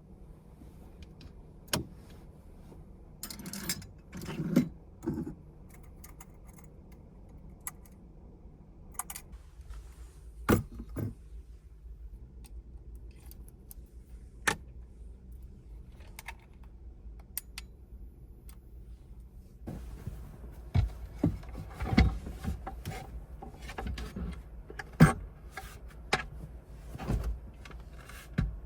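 Scattered clicks, knocks and light rattles of small objects being handled, with a cluster around the fifth second. A low steady rumble comes in about two-thirds of the way through, and the clicks grow denser after it.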